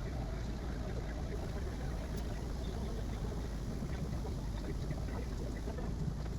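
Bambu Lab A1 3D printer running: a steady whirr of fans and motors with a few faint clicks.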